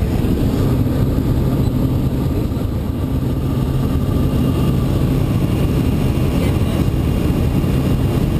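Light aircraft's engine and propeller droning steadily, heard from inside the cabin.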